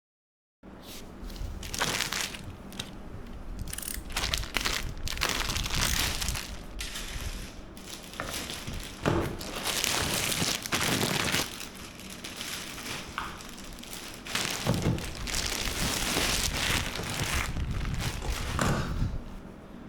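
Plastic packaging crinkling and rustling as chair parts are handled and unwrapped, in irregular bursts.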